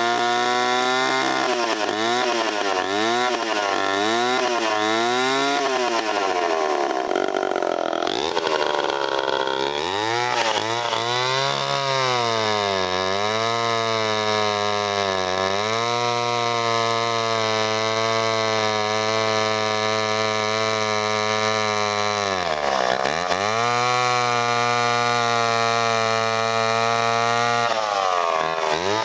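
A 1963–64 Homelite C-7 two-stroke chainsaw (80.5 cc) is revved up and down several times. It then runs mostly steady at high speed, dipping briefly now and then.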